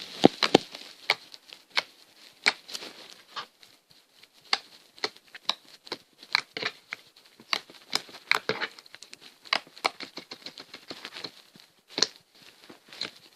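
Jiggly slime being squished and poked by hand, making a string of irregular wet clicks and pops, several a second.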